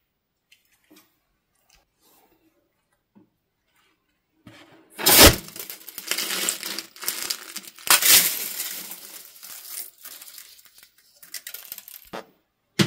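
After a few quiet seconds, a sequin-filled balloon is cut open with a sudden snap. Loose plastic sequins then spill out onto the plastic tray with a crackling rustle for several seconds that slowly dies away, and a sharp click comes near the end.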